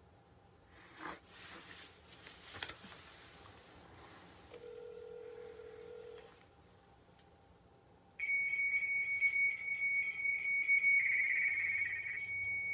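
Smartphone call on speakerphone: a single burst of ringback tone about five seconds in. About eight seconds in, the line answers with a loud, high, steady electronic tone that shifts slightly a couple of times, a strange answer in place of a person.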